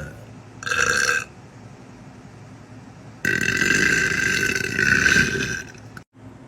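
A young woman burping: a short burp about half a second in, then a long, drawn-out burp lasting over two seconds.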